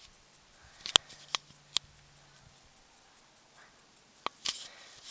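A few sharp, light clicks or taps, irregularly spaced: three in the first two seconds, then a couple more with a short rustle near the end.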